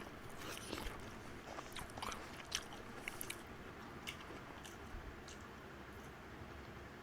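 A person chewing and biting mouthfuls of instant fried noodles, with scattered soft mouth clicks that thin out over the last couple of seconds.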